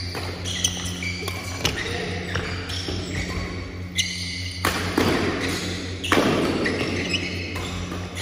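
Badminton rally: rackets sharply striking the shuttlecock several times at irregular intervals, with sneakers squeaking and scuffing on the wooden court floor, over a steady low hum.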